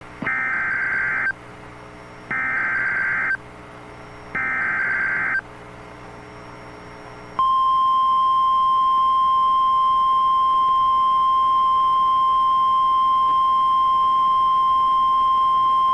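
Emergency Alert System SAME header: three roughly one-second bursts of screeching data tones about a second apart, then the NOAA Weather Radio 1050 Hz warning alarm, a single steady tone starting about seven seconds in. Together they open the broadcast of a severe thunderstorm warning.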